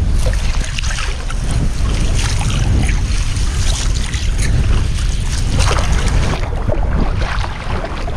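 Wind buffeting the microphone with a steady low rumble, over the wash and splash of shallow surf.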